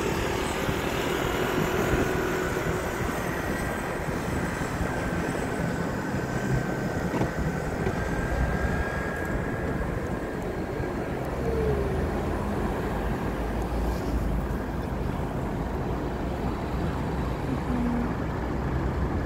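Steady city traffic noise with a low rumble, picked up while riding along the street. A few faint tones drift in and out, and the low rumble grows heavier from about halfway through.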